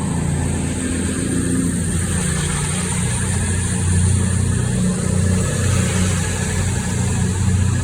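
Class 220 Voyager diesel multiple unit's underfloor diesel engines running as the train pulls away, a steady low drone.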